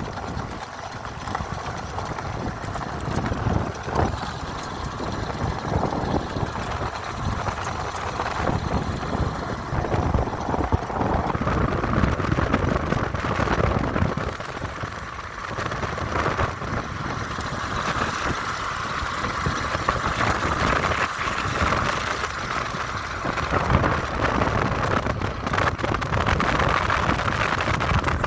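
A vehicle running along a road, with wind rushing over the microphone.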